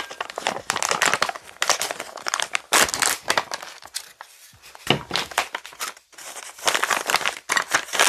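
Plastic candy pouch crinkling as it is handled and torn open, with brief lulls about four and six seconds in.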